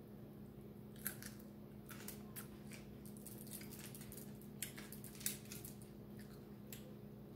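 Fingers picking apart a whole fish on an aluminium-foil-lined tray, with mouth eating sounds: faint, irregular little crinkles and clicks, about a dozen, over a steady low hum.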